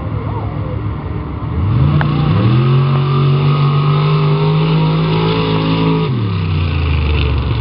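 Lifted mud-race pickup truck's engine launching at full throttle. The revs climb sharply about a second and a half in, hold high and steady through the run, then fall away near the end as the driver lifts off.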